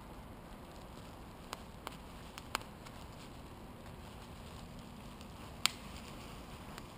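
Faint steady background hiss with a handful of short sharp clicks, the loudest about two and a half seconds in and another just before six seconds in.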